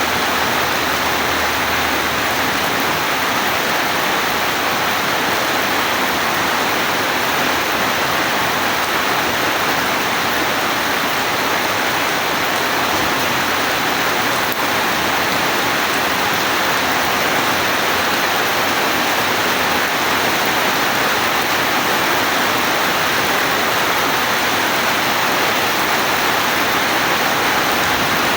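Steady rain falling, an even hiss with no thunder claps or other sudden sounds.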